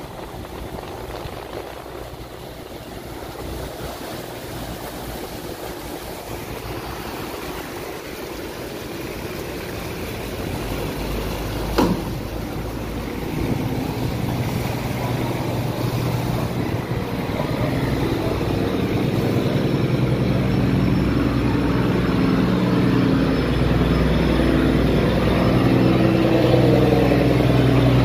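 A boat's engine running over a steady rushing noise, growing steadily louder from about halfway as the boat draws near. There is one brief sharp sound about twelve seconds in.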